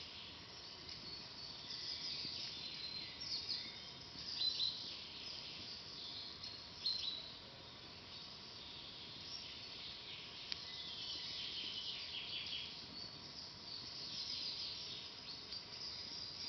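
Forest birds singing and chirping in a busy chorus of high, short calls and trills, with a few louder chirps around four and seven seconds in. There is a single sharp crack about ten seconds in.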